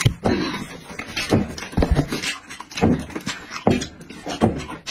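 Close-up eating noises over roast sheep head: a string of irregular wet mouth clicks and smacks from chewing, with a few knocks of bone on a wooden board, one heavier thud about two seconds in.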